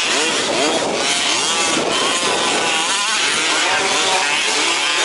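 Several 1/5-scale two-stroke petrol RC trucks racing, their small engines revving up and down over one another in many overlapping, rising and falling notes.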